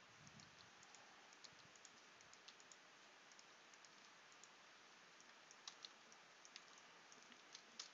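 Faint computer keyboard and mouse clicks over a steady low hiss: a few scattered taps, coming more often near the end.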